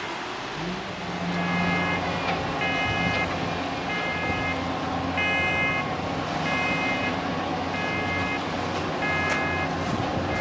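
Amphibious boat driving on its wheels up a slipway out of the sea, its engine running and picking up about a second in. A warning beeper sounds steadily over it, one short beep about every 1.3 seconds.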